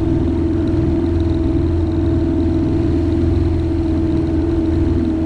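An engine running at a steady speed: a constant hum over a deep rumble, with no change in pitch or level.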